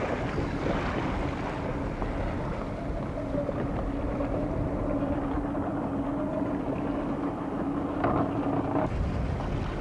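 Small boat's outboard motor running at a steady note, with wind buffeting the microphone and water rushing past the hull. The motor note stops abruptly about nine seconds in, leaving wind and water noise.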